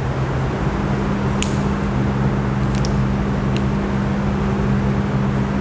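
Steady low hum and hiss of machine noise in the room, with a few faint clicks in the middle.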